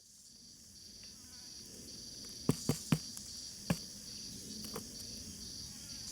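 Steady high-pitched chorus of insects, crickets by the sound, fading in at the start. A little past the middle come sharp clicks or knocks, three in quick succession and a fourth about a second later.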